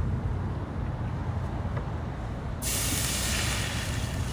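Water poured into a hot pan on a portable gas camp stove, hissing loudly into steam; the hiss starts suddenly about two and a half seconds in. A steady low background rumble runs underneath.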